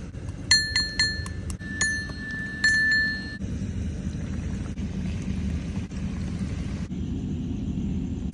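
Metal pestle striking a small brass mortar about half a dozen times, each blow ringing with a bright metallic tone, the last ringing longest. After that comes a steady hiss, typical of batter frying in hot oil.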